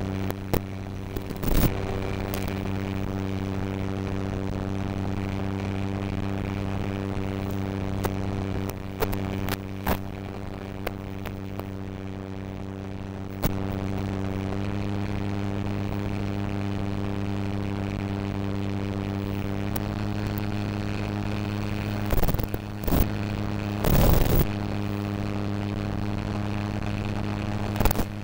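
Electric motor and propeller of an FMS 1400mm Spitfire RC model in flight, heard from its onboard cockpit camera: a steady drone of a few stacked tones that shifts slightly in pitch about 14 and 20 seconds in. Short crackling bursts of noise break in several times, the longest about 24 seconds in.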